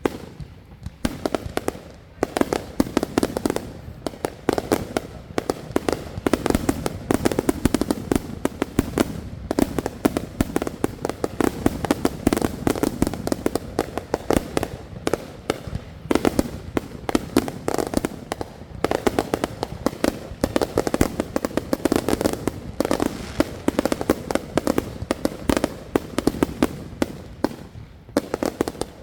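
Fireworks going off in a dense, rapid barrage of bangs and crackles, many per second, easing briefly a few times before picking up again.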